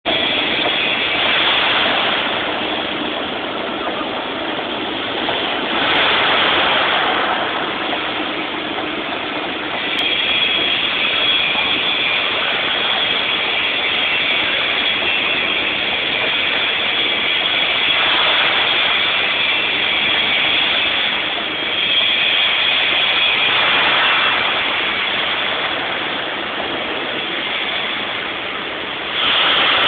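Pick-and-carry crane's engine running steadily with a thin high whine, the sound swelling louder and easing back every few seconds.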